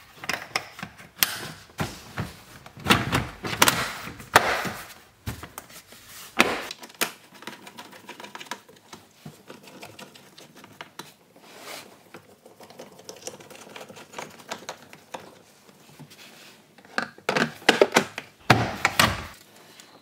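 Hard plastic dashboard and glove box trim panels of a Honda Civic knocking, clicking and rattling as they are handled and pushed into place by hand. The clatter is loudest in the first few seconds and again near the end, with sparser, quieter clicks in between while screws are driven with a hand screwdriver.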